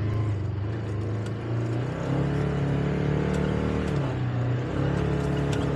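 Polaris Ranger XP 1000 side-by-side's engine running as the buggy drives over rough grassland, heard from the open cab. The engine note rises about two seconds in, eases briefly near four seconds, then picks up again, with occasional light ticks and rattles over it.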